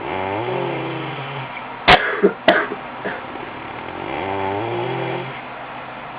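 A sleeper snoring: two long, low snores about three seconds apart, with two sharp, loud cough-like sounds in between, about two seconds in.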